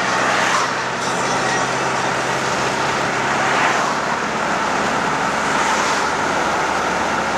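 Steady road noise of a moving car, heard from inside it: a continuous rush of tyres and traffic over a low engine hum.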